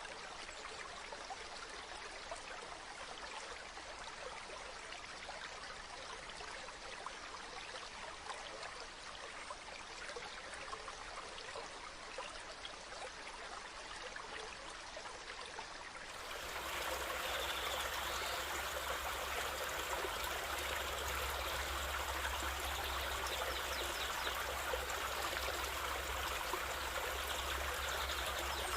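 Stream water flowing in a steady rush. A little past halfway it switches abruptly to a louder, fuller-sounding stretch of stream.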